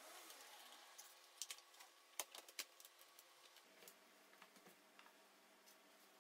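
Faint clicks and light knocks of an aluminium MacBook Pro and small tools being handled on a desk mat, in otherwise near silence. A cluster of sharp clicks comes between about one and a half and two and a half seconds in, with a few softer ones later as the laptop is turned over and its lid opened.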